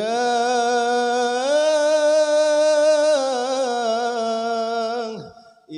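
A man's voice singing sholawat, one long unaccompanied held note that steps up in pitch about a second and a half in, wavers in ornamented turns around the middle, and fades out about five seconds in.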